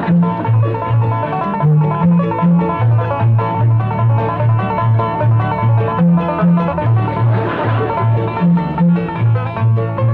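Bluegrass string band playing: acoustic guitar and banjo picking over an upright bass that alternates between two notes, about two to three notes a second.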